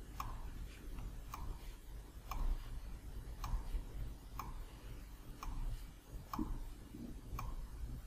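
A clock ticking faintly and evenly, about once a second, over a low steady hum.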